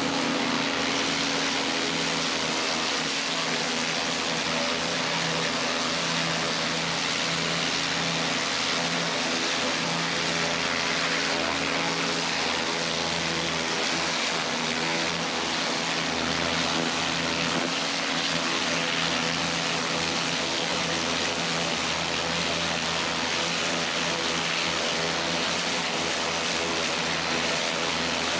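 Kärcher pressure washer running steadily: a constant pump-motor hum under the hiss of the high-pressure water jet spraying the cobblestones.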